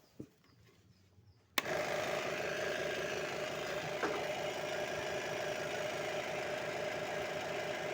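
Electric scroll saw for cutting foam switched on about a second and a half in, then running steadily with a fast, even chatter.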